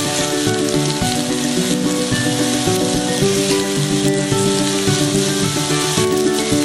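Raw pork steak sizzling steadily as it sears in a hot ridged grill pan, with soft background music playing over it.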